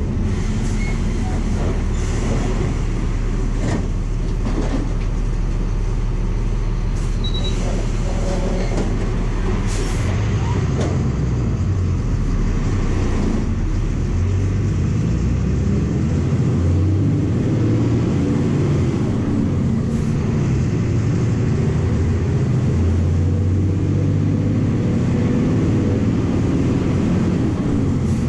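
The MWM 6.12 TCE six-cylinder turbodiesel of a VW 17.230 EOD bus, heard from inside the cabin while the bus drives along, with its note changing about halfway through. A few brief clicks and rattles come through over the engine.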